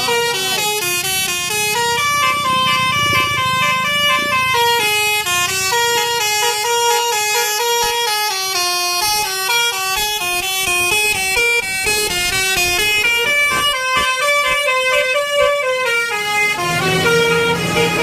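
A coach's telolet basuri musical horn playing a long, fast melody of stepped tones. It stops near the end, leaving the bus engine running as the coach passes close by.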